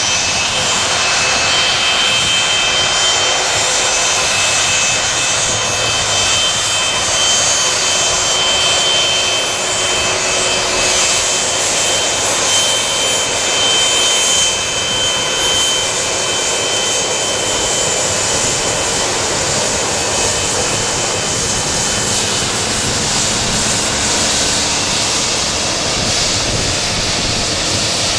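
Boeing 757-200 jet engines running steadily as the airliner rolls along the runway: a loud, even rushing noise with a faint high whine through it.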